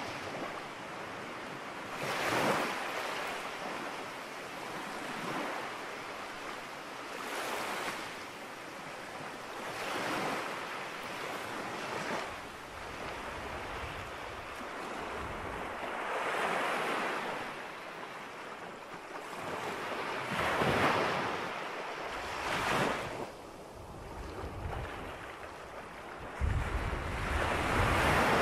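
A continuous rushing noise that swells and fades every few seconds, in irregular surges.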